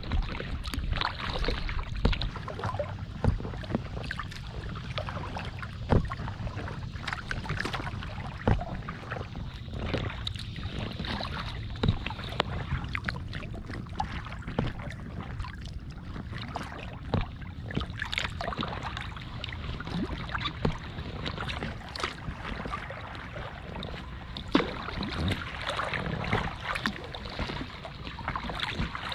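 Kayak being paddled on calm water: water swishing along the hull with paddle strokes, and short sharp splashes or knocks every few seconds at irregular intervals.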